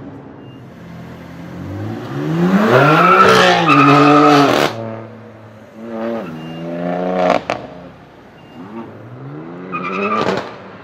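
BMW M4 F82's twin-turbo straight-six revving hard through a loud Fi aftermarket exhaust, three times. The first and longest rev cuts off abruptly, and the second and third each end in a sharp crack.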